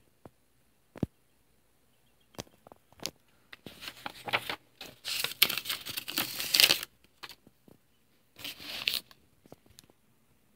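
Glossy comic book pages being turned by hand. A few light handling clicks come first, then paper rustling and crinkling that is loudest about five to seven seconds in, with a shorter rustle near nine seconds.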